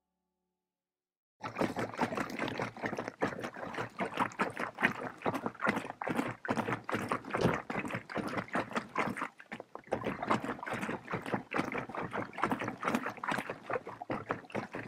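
Lake water lapping and splashing in quick, irregular small waves, starting suddenly about a second and a half in and going on unevenly.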